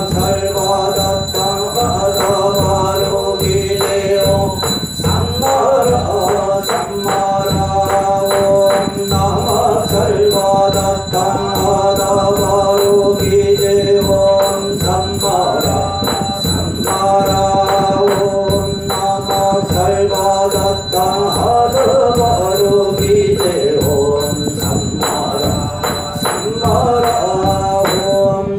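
Korean Buddhist chanting (yeombul): a monk and congregation chant in unison in long, even-pitched repeated phrases, over a steady beat of percussion strikes.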